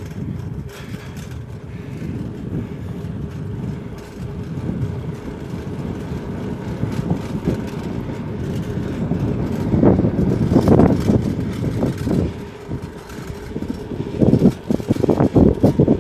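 Wind rushing over the microphone of a camera on a moving bicycle, with louder, uneven buffeting from about ten seconds in.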